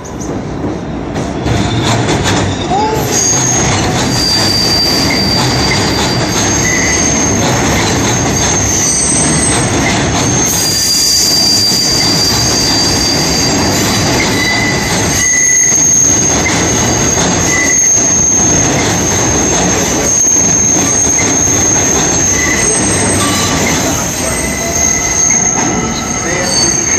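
R142A subway train rounding a sharp curve on elevated track, its wheels squealing in high, steady tones that come and go over the rumble of the cars on the rails.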